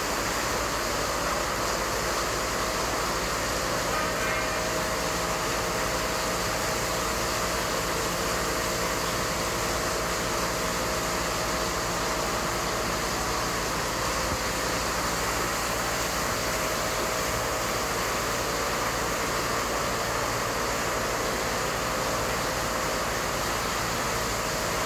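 Steady rain falling, an even unbroken hiss, with a faint steady hum underneath.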